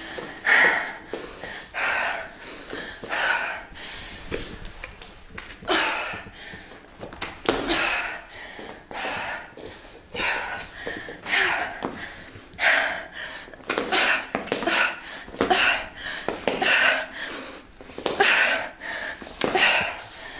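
A woman breathing hard from exertion during a high-intensity interval workout: short, sharp huffs of breath in a quick, fairly even rhythm, about one a second.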